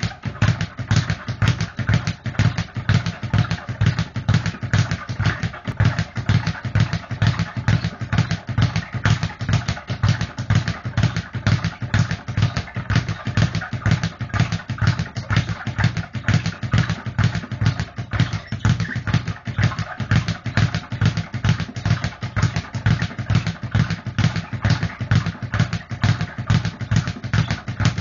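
Speed bag being punched nonstop in a fast, steady rhythm, each blow followed by the bag rattling off its rebound platform. It starts suddenly and keeps an even drumming beat.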